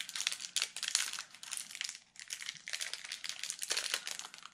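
Small clear plastic bag crinkling in the fingers as a ring is worked out of it, in quick crackly bursts with a brief pause about two seconds in.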